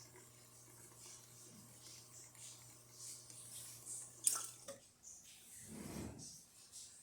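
Lelit Bianca espresso machine's pump running with a steady low hum while espresso drips into the cup. About four seconds in there is a sharp click and the hum stops as the shot ends, followed by a brief low whoosh.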